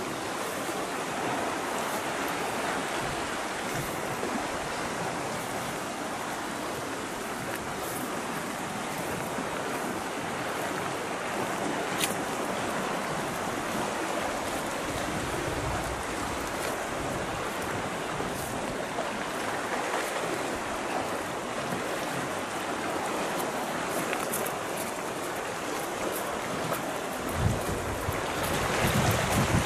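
Steady wash of sea waves on a rocky shore, mixed with wind. Near the end, wind gusts start to buffet the microphone with low rumbles.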